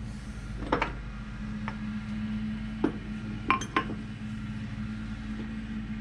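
A few light metallic clinks and taps of steel tools and parts being handled on a small milling machine, scattered through the first four seconds over a steady low hum.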